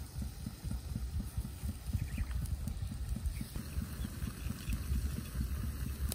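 Wind buffeting the microphone: an irregular low rumble of thumps, with a few faint clicks about two seconds in.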